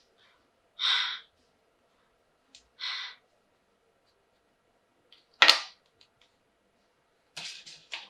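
Plastic toy pieces and packaging being handled: two short rustles, a sharp plastic knock about halfway through, then a quick run of clicks near the end.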